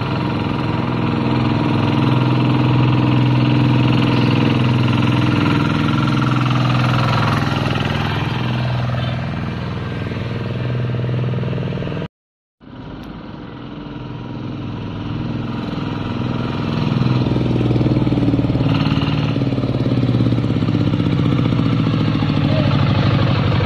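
Single-cylinder diesel engine of a two-wheel hand tractor pulling a trailer, running steadily. The sound cuts out for a moment about halfway through, then the engine grows louder as the tractor approaches.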